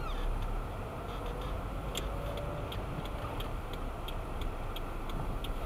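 Car's turn-signal indicator ticking, a regular click about two to three times a second, starting about two seconds in, over the steady low hum of the engine and tyres in the cabin at slow speed.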